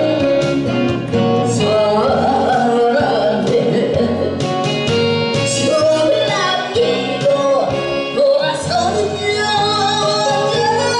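A woman singing a Korean song into a microphone, amplified through a PA over instrumental accompaniment, her held notes wavering in pitch.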